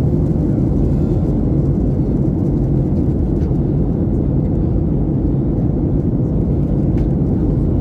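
Airliner cabin noise: a steady low drone of the jet engines and airflow, heard from inside the passenger cabin.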